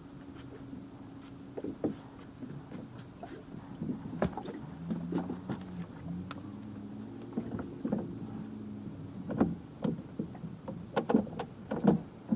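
Small boat's motor humming at low speed, its pitch shifting a few times, with sharp knocks and slaps of water against the hull that come thicker and louder near the end.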